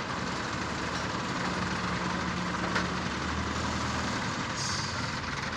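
Heavy diesel engine idling with a steady low drone, with one light click near the middle.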